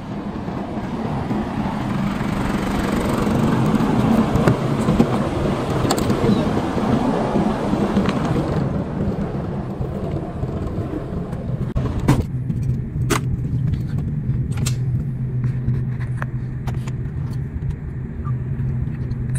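Rushing wind and road noise from a truck on the move, swelling to its loudest about four to five seconds in. Then, inside a Mercedes-Benz truck cab on the road, the diesel engine drones steadily, with a few sharp clicks.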